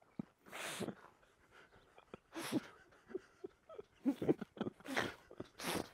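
Men laughing: several breathy, wheezing bursts of laughter, with short voiced laughs about four to five seconds in.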